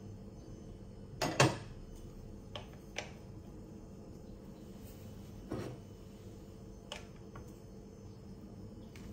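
Kitchenware clacks and knocks as wooden chopsticks work noodles in an electric cooking pot and a ceramic bowl is moved on the counter. The loudest is a sharp double clack about a second and a half in, followed by a few lighter knocks, over a steady low hum.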